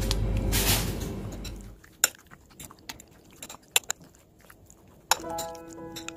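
A metal fork clinking and tapping against a ceramic bowl as it stirs cubes of pork in marinade, a handful of separate sharp taps. Before it, a plastic-wrapped pack of dried bamboo leaves rustles over a low hum, and music comes in near the end.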